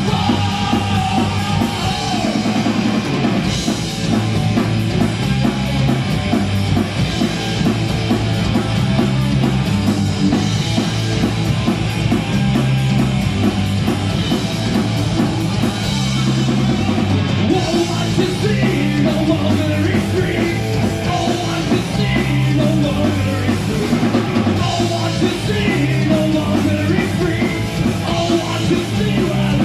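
Rock band playing live and loud: electric guitars, bass and a drum kit, with a vocalist singing into a microphone.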